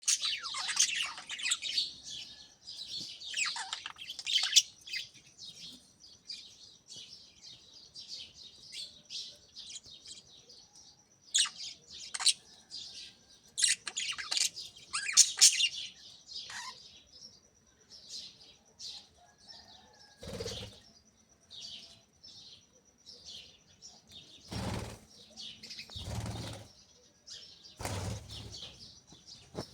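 A flock of budgerigars chirping and chattering in quick, high twitters, busy at first and thinning out about halfway through. In the last third, a few short, lower sounds stand out among the chirps.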